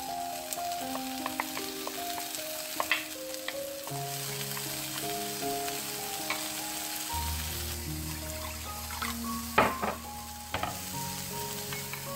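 Tofu slices sizzling in an oiled frying pan as a chili seasoning paste is spooned onto them, with small clicks of the spoon and a louder clatter about ten seconds in. A soft background melody plays along.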